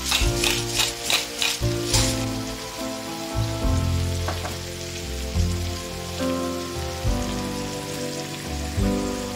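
Potatoes and vegetables sizzling in a frying pan over background music with a steady beat. For the first two seconds a rhythmic scratchy pulsing, about four strokes a second, sits over the sizzle.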